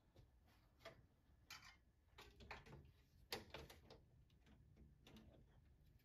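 Faint clicks and light clatter of an expansion card and slot brackets being handled in a steel PC case, with the sharpest click about three seconds in.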